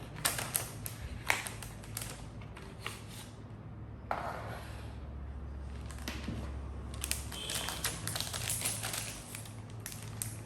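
Keyboard box contents being handled during an unboxing: scattered clicks and knocks of cardboard and plastic, with a stretch of rustling about four seconds in.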